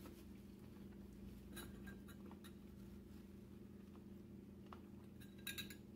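Near silence: a low steady hum of room tone, with a few faint light clicks and a quick pair of them near the end.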